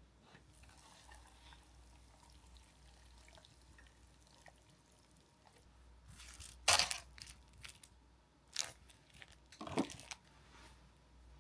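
Quiet room tone, then three short knocks or clatters of things being handled, about seven, nine and ten seconds in, each followed by a few smaller ticks.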